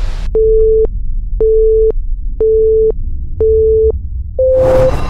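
Synthesized intro sound effects: a TV-static hiss cuts off just after the start, then five electronic beeps about a second apart, each about half a second long, the last a little higher in pitch, over a low rumble. Near the end a rising whoosh leads into electronic music.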